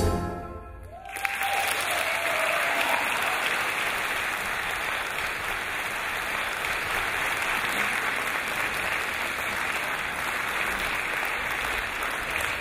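The string ensemble's final chord dies away, and about a second in an audience breaks into steady applause.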